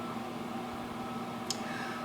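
Microwave oven running with a steady hum, cooking a bag of popcorn, with one brief sharp tick about one and a half seconds in.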